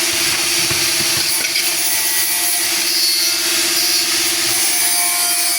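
Peanut grinding and sorting machine running steadily: an even hiss over a constant motor hum.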